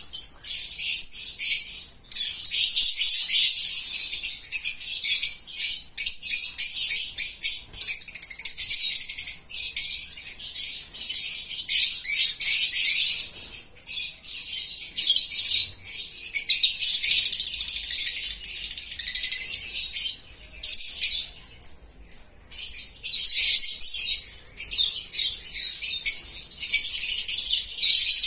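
Birds chirping and chattering in rapid, high-pitched chirps, almost without pause, with a few short breaks along the way.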